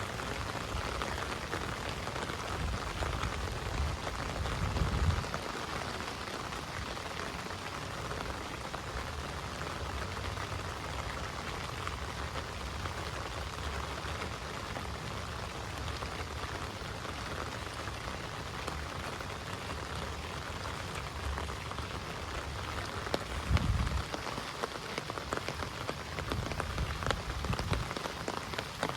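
Heavy rain falling steadily in a dense, even patter of drops. Two brief low rumbles break in, about five seconds in and again near the end.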